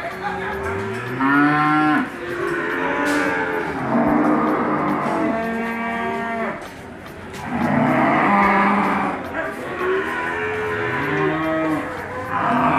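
Cattle mooing: about half a dozen long moos one after another, each rising and then falling in pitch, some overlapping.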